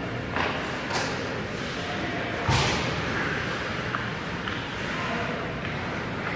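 Ice hockey play in an echoing rink: a few sharp clacks and one louder thump about two and a half seconds in, over the hall's steady background noise.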